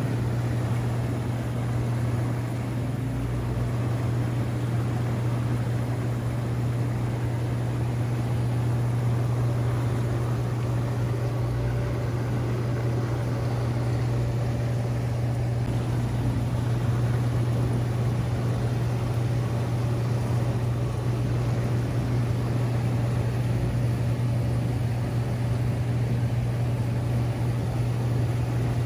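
Hot tub jets running: a steady low pump hum over the rush of churning water.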